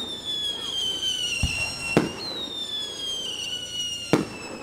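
Fireworks: two long whistles, each falling slowly in pitch for about two seconds, with sharp bangs of bursting shells, the loudest about two seconds in and near the end.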